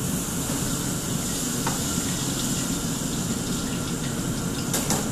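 Steady rushing noise of a restaurant wok range under its extraction hood, with water running. A light metal clink comes about two seconds in, and another near the end.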